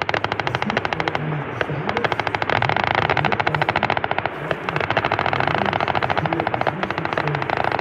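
Automatic weapons fire in long, rapid bursts, about fifteen to twenty shots a second, with a short break about four seconds in.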